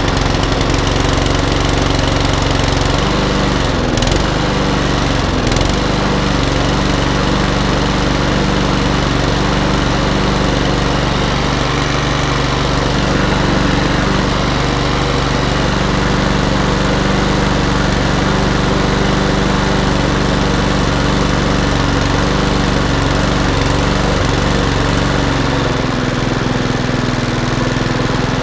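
Mountfield RSC100 single-cylinder engine on a rotary push lawn mower running steadily just after starting on choke, with its note shifting slightly near the end. Freshly serviced, it is running as it should.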